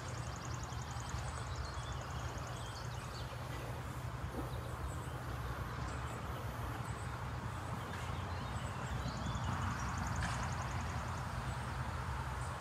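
Outdoor background: a high, fast-pulsing animal trill at the start and again later, over a steady low rumble.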